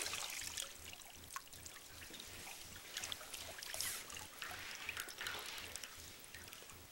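Water sloshing and splashing in a galvanized metal tub as a person in a down jacket moves around in it, with dribbling and dripping water and small irregular splashes that swell a few times.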